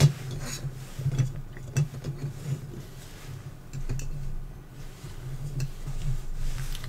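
Light clicks and taps of plastic model-kit parts, torpedo-tube sections, being handled and fitted against each other, with a few sharper clicks scattered through, over a low background hum.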